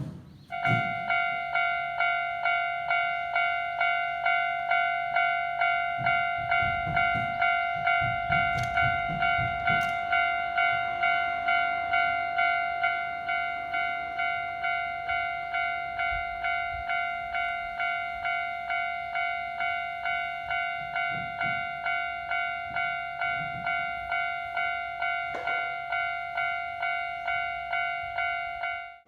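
Railway level crossing warning bell ringing in an even rhythm, about two strikes a second, each strike a ringing chord that fades before the next. It cuts off suddenly near the end.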